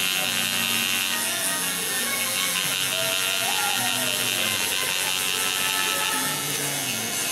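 Tattoo machine buzzing steadily as its needle shades colour into the skin.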